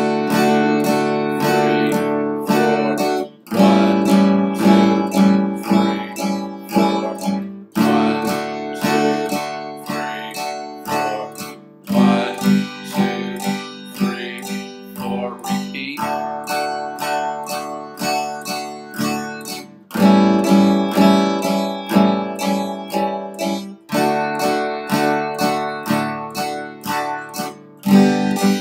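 Steel-string acoustic guitar strummed in steady alternating down-up eighth notes, about two strums a second. The chords change about every four seconds through D, A7, D and G, and the progression is played twice through.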